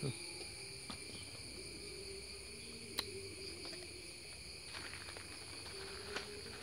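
Steady, shrill chorus of insects such as crickets, at several high pitches held constant, with a few short sharp clicks, the loudest about three seconds in.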